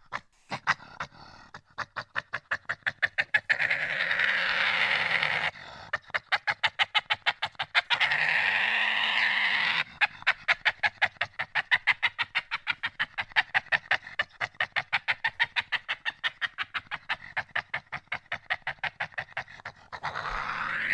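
Badger giving long runs of rapid grunts, several a second, in three bouts with short breaks between them.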